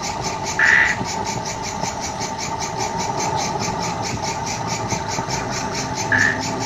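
16mm film projector running, a rapid, even ticking over a steady hum from the film's sound playback. Two short high-pitched sounds come through, about a second in and near the end.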